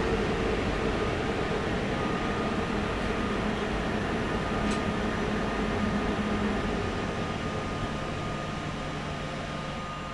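Train rumble with a steady rush of noise and a faint high hum, dying away over the last few seconds. A brief high click comes about halfway through.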